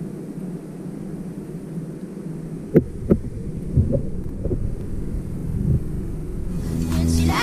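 Steady, muffled underwater rumble as heard by a submerged camera, with a few sharp clicks and knocks around the middle. Music fades in near the end.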